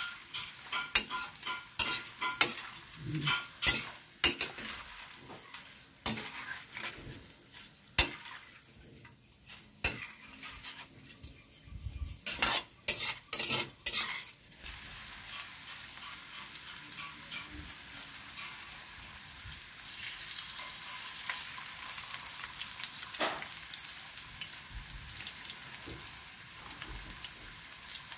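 A metal spatula and mesh strainer scraping and knocking against a steel wok as fried potato slices are stirred and lifted out of the oil. About halfway through, the knocking stops and hot oil sizzles steadily as a fresh batch of potato slices fries.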